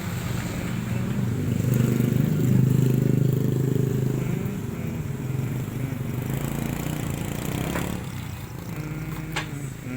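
A motor vehicle engine running close by, swelling loudest about two to four seconds in, then settling back to a steady low hum, with a couple of light clicks near the end.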